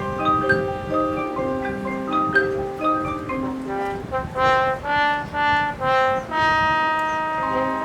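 High school marching band playing: brass chords with front-ensemble mallet percussion. Partway through comes a run of short, swelling chords, then a long held chord.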